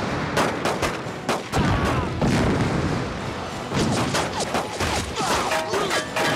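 Film gunfight sound effects: a rapid, irregular barrage of gunshots from several guns, with debris spraying from bullet strikes.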